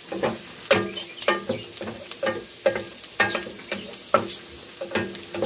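Wooden spatula scraping and knocking against a square copper-coloured frying pan, a dozen or so irregular strokes, over the sizzle of minced garlic and onion frying in margarine.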